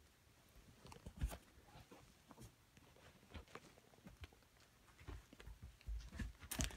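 Faint, scattered taps and soft thuds of young Border Collie puppies and an adult dog moving about on blanket bedding, with a few louder low thumps near the end.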